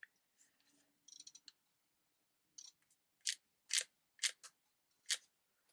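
Faint, short scratching strokes of a Sharpie marker drawn across paper, about six of them in the second half, each under a quarter second and spaced roughly half a second apart.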